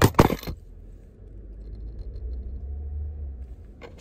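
A few sharp knocks and rustles from a phone being handled and repositioned, then a low steady rumble of the car heard inside the cabin, which swells about two to three seconds in.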